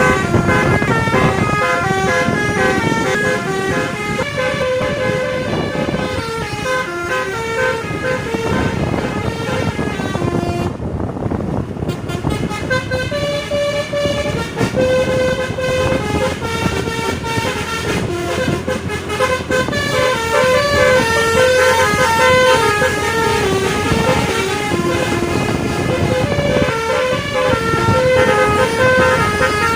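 Tour bus's basuri telolet horn, a multi-note air horn, playing a fast tune of short stepped notes over the noise of the running bus, with a brief pause about eleven seconds in before the tune starts again.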